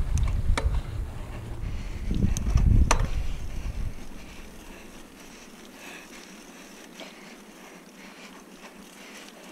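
Mountain bike rolling down a grassy dirt track, with wind buffeting the helmet-mounted microphone and a few sharp rattles over bumps. About four seconds in, the rumble drops away, leaving a faint hiss and the odd tick.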